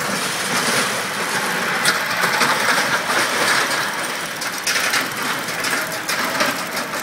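Mad Mouse steel roller coaster running: a steady mechanical clatter and rattle of the car and track, with sharp clicks now and then.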